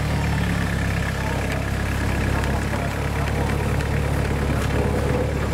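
Toyota Hilux N60 pickup's engine running at steady low revs under load as the truck crawls up a rock step.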